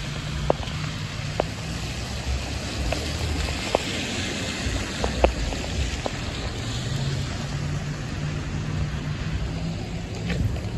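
Cars driving through heavy rain on a flooded street: tyres hissing and splashing through standing water over a low engine hum, with scattered sharp ticks close by, typical of raindrops hitting near the microphone.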